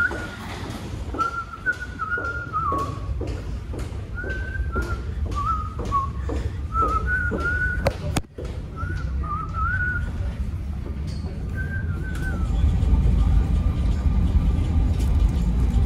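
A person whistling a wavering tune in short phrases, with regular quick footsteps underneath. The whistling stops about twelve seconds in, and a low steady rumble builds near the end.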